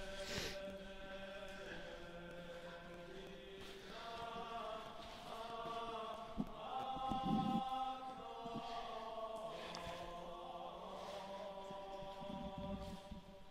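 Background music of slow, sustained choir-like chanting, its held chords changing every couple of seconds, with a few low thumps around the middle.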